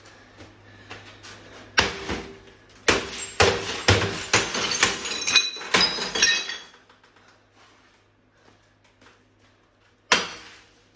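Hammer blows smashing out the glass face of a GE 26CT622 CRT television's picture tube, with broken glass clinking as shards fall. A quick run of strikes starts about two seconds in and lasts several seconds; after a pause, more blows begin near the end.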